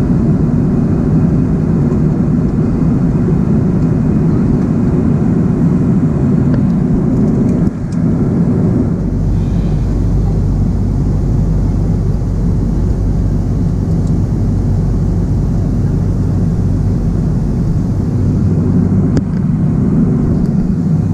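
Steady cabin noise of an Airbus A330-200 airliner in cruise, heard from an economy seat, with most of its weight low down. About eight seconds in it dips briefly, then runs on with a deeper hum beneath it.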